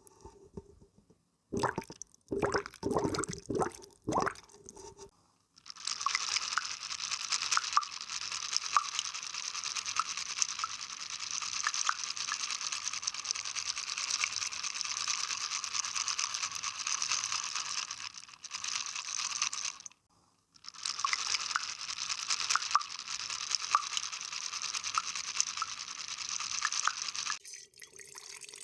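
A few short water plops, then a dense, even crackling made of many tiny clicks that runs in long stretches with two brief breaks.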